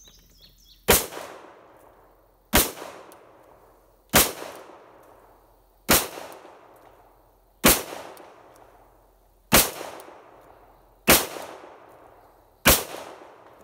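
Glock 41 pistol in .45 ACP fired in slow, steady succession: eight loud shots, about one every one and a half to two seconds, each trailing off in a short echo.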